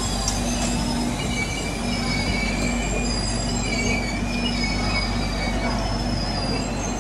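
Train running slowly with a steady low rumble, its wheels squealing on and off in thin high-pitched tones.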